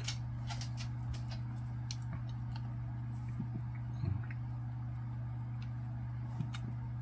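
Faint chewing of an Oreo cookie, with small irregular mouth clicks, over a steady low hum.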